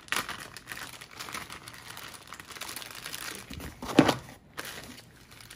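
Small plastic parts bags crinkling and rustling as they are handled and rummaged through in a cardboard box, with the loudest crinkle about four seconds in.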